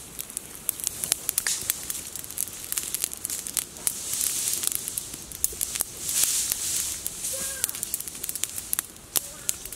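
Small fire of dry twigs and leaves crackling with many sharp pops, with a swelling hiss twice in the middle as it burns up.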